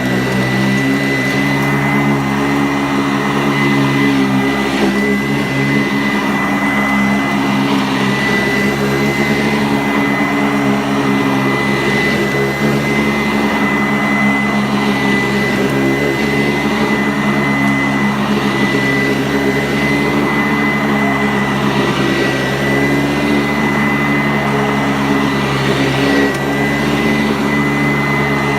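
Sanitaire SC684 upright vacuum cleaner running steadily, a high thin whine over a lower hum.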